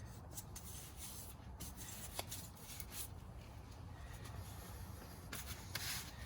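Faint rubbing and handling sounds of hands working the CV axle, with a few soft clicks.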